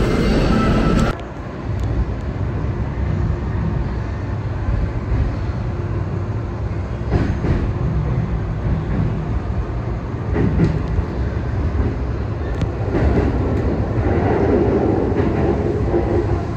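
Electric commuter train running, heard from inside the car: a steady low rumble with a few clacks of the wheels over rail joints. The first second is the louder sound of a train at the platform, cut off abruptly.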